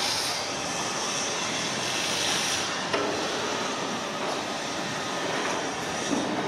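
Steady engine roar, a mechanical hum with hiss over it, with one sharp click about three seconds in.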